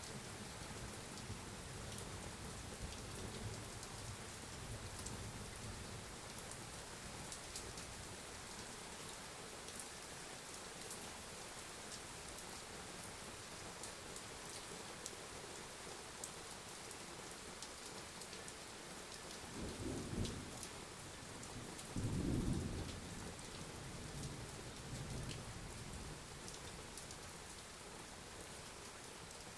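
Steady rain falling, with individual drops ticking, under thunder. A low rumble fades in the first few seconds, and two louder claps of rolling thunder come about twenty and twenty-two seconds in.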